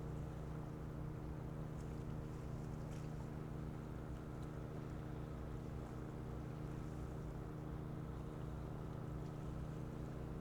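A large ferry's diesel engines running, a steady low drone made of several held tones.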